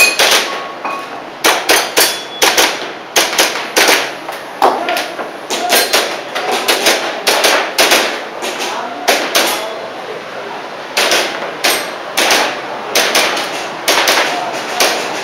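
Airsoft pistol firing a long string of sharp shots at an uneven pace, many in quick pairs.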